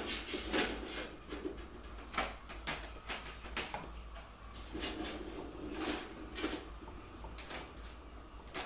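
Laying hens clucking and squawking, a dense run of short sharp calls, over a steady low hum.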